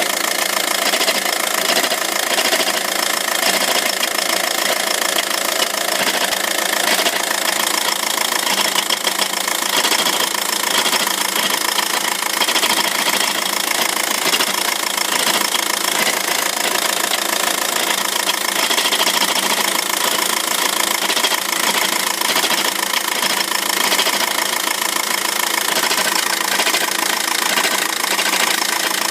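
2006 VW 1.9 TDI four-cylinder turbo-diesel engine running steadily with a constant rattle from a worn-out dual mass flywheel that needs replacing.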